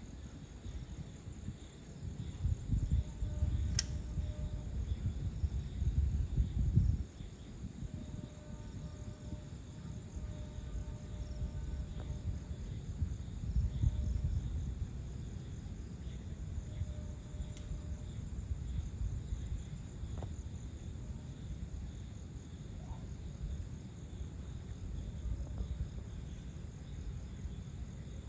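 Dusk chorus of crickets and other insects, a steady high-pitched trill, over a low rumble that is heaviest in the first seven seconds. There is one sharp click about four seconds in.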